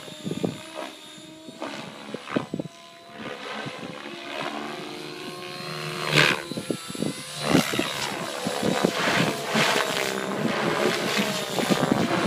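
Thunder Tiger Raptor E720 electric RC helicopter in flight, its rotor and motor whirring with the pitch gliding up and down as it manoeuvres. It grows louder from about three seconds in.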